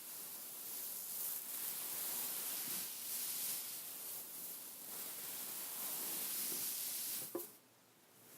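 Fingertips scratching and rubbing over a beaded pillow: a steady, high-pitched rustling hiss of beads with small swells. Near the end comes a short tap, and then the rustling stops.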